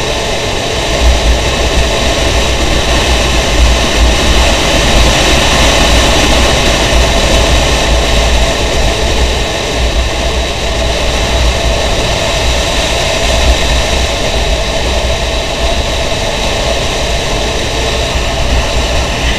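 Steady wind rush and buffeting on the microphone of a moving motorbike, mixed with engine and road noise.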